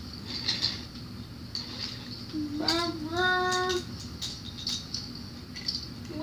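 A child's voice singing one wordless held note for about a second and a half, starting about two and a half seconds in with its pitch sliding up, amid scattered light clicks.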